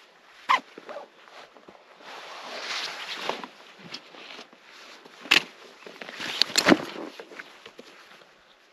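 Rucksack and chest pack being handled: nylon fabric rustling and scraping, with sharp clicks and knocks, the loudest a little after five seconds in and again around six and a half seconds in.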